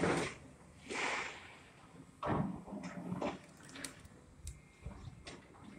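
Demolition by excavator: irregular crunching and clanking bursts, roughly one a second, as the machines break apart the store's front, with a few sharper clicks and knocks later on.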